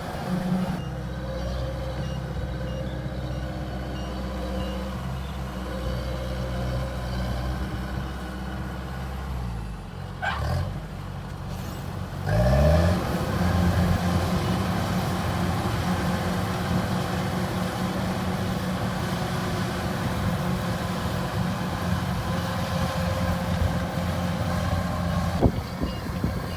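Rice combine harvester's diesel engine running steadily. The engine note drops around ten seconds in, then revs back up about twelve seconds in and keeps running steadily, a little louder.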